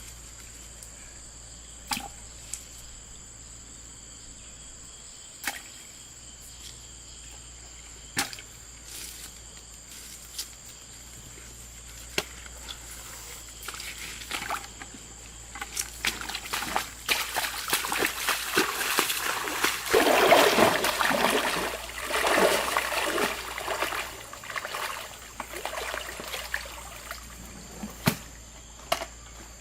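Water splashing and sloshing: scattered single splashes and drips at first, then a long run of heavy, irregular splashing starting about halfway through that is loudest a little later and thins out near the end.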